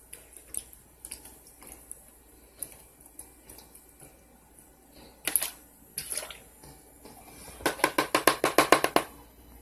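A long utensil stirring punch and fruit slices in a plastic drink cooler: scattered clinks and splashes, then a quick run of about a dozen knocks near the end.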